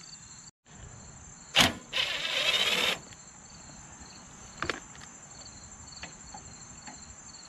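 Cordless drill-driver running for about a second, turning a Phillips screw, just after a sharp click. Insects chirr steadily in the background.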